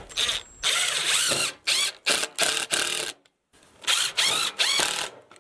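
Cordless impact driver driving screws through a sheet-metal feeder's bent end tab into a 2x4, run in a series of short trigger bursts with a rattling hammer action. There is a brief pause about three seconds in before another run of bursts.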